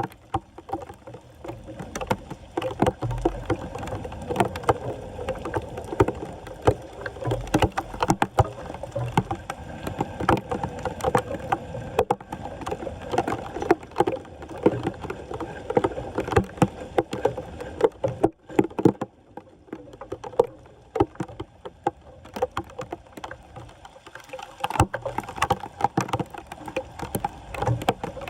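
Floodwater splashing and sloshing, with dense, irregular knocks and scrapes, the sound of debris being worked loose from a clogged street drain.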